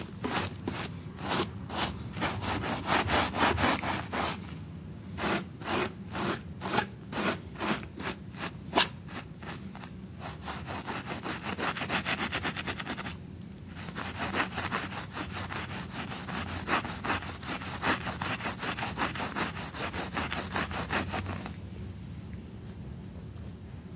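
Stiff-bristled scrub brush scrubbing back and forth over a wet, soapy rug, a rapid rhythm of about three strokes a second. The scrubbing breaks off briefly about halfway through and dies away near the end.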